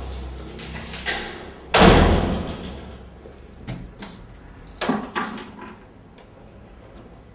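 A glass-paned door shuts with a bang about two seconds in, ringing on briefly. Several lighter clicks and knocks follow.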